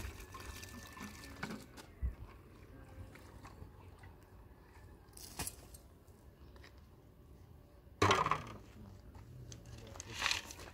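Water poured from a plastic jug into a metal basin of grey mud slurry and stirred by hand, with a few light knocks. A sudden loud rush of noise comes about eight seconds in, and a shorter one near the end.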